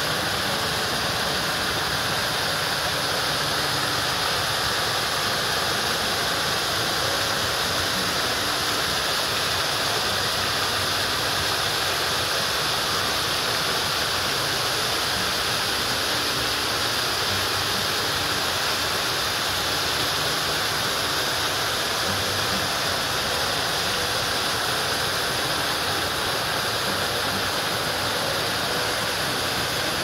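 Waterfall: many thin streams of spring water falling from a moss-covered rock dome and splashing into a shallow pool, in a steady, unbroken rush.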